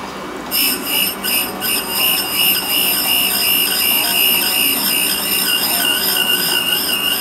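A valve refacing grinder's wheel grinding the face of a Toyota 4A engine valve, throwing sparks. About half a second in the wheel bites and a loud, high-pitched screech starts. It wavers in pitch, dips briefly a few times at first, then holds steady.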